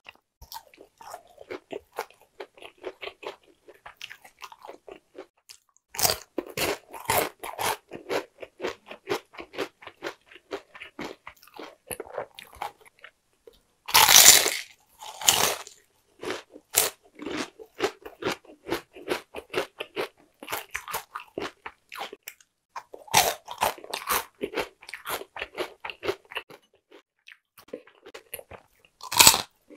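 Crispy fried chicken skin being bitten and chewed: a long run of crunching and crackling chews, with a few louder crunchy bites about six seconds in, around halfway, and twice more in the last third.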